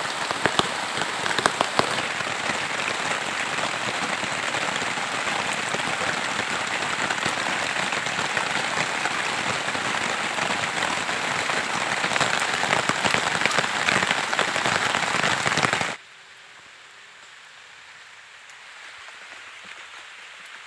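Heavy rain falling on rocks and a shelter, with many close drop hits. About sixteen seconds in it cuts suddenly to much fainter rain falling on a lake surface.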